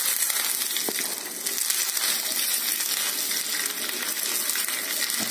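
Curry leaves and mustard seeds sizzling in hot oil in a small steel tempering pan, with one sharp tick about a second in.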